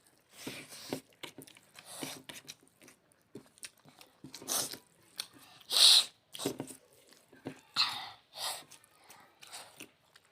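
Close-up eating sounds of rice and curry: irregular chewing and mouth noises, with one louder short burst about six seconds in.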